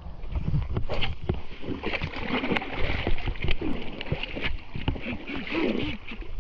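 A hooked fish thrashing in muddy shallows at the water's edge, with water splashing and sloshing irregularly as a hand grabs for it and feet wade in.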